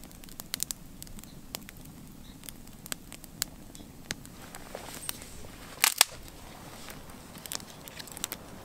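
Scattered, irregular sharp cracks and pops of dry wood, with two louder cracks close together about six seconds in, over a faint steady background hiss.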